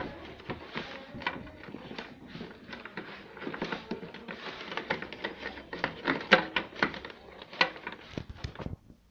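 Hands handling car wiring and a plastic connector plug: irregular rustling with small clicks and taps, and a few sharper clicks near the end.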